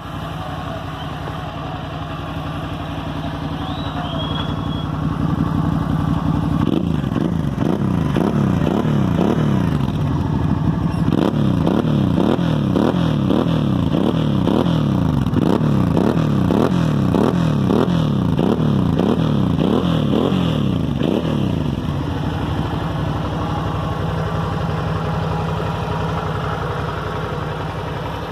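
Suzuki V-Strom 650's V-twin engine through a full-system aftermarket exhaust with a twin-outlet silencer. It idles, then is revved in a long run of quick repeated throttle blips, and settles back to a steady idle about three-quarters of the way through.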